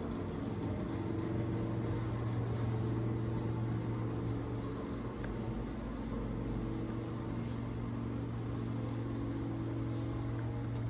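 Steady low machine hum with a droning tone and fainter overtones, unchanging throughout, heard in a small vaulted room.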